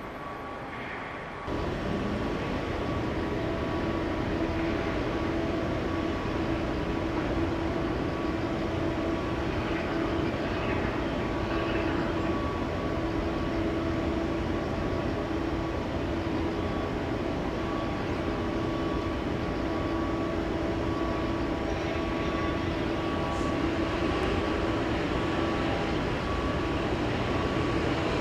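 Steady mechanical drone of shipyard machinery: a constant hum over an even rumble, stepping up in loudness about a second and a half in and then holding level.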